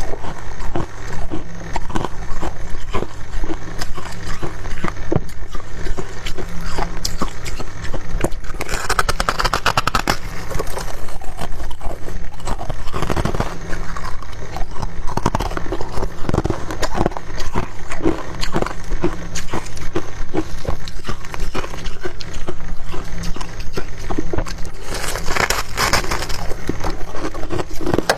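Refrozen, dry freezer frost being chewed close to the microphone: dense, irregular crackling crunches throughout, with louder bursts of crunching about a third of the way in and again near the end. A steady low hum lies underneath.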